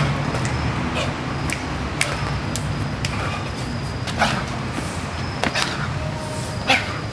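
A dancer's sneakers tapping and scuffing on brick paving: a few sharp, irregular knocks over a steady low hum.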